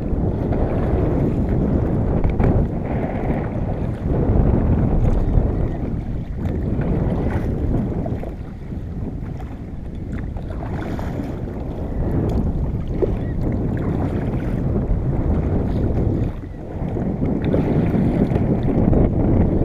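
Wind buffeting the microphone over water sloshing around a fishing kayak, a low rumbling rush that swells and eases every few seconds.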